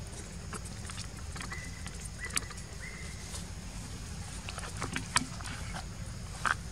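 Young monkeys huddled and tussling on dry ground: a few short, high, even-pitched squeaks in the first half, with scattered clicks and rustles of movement over a low steady background noise.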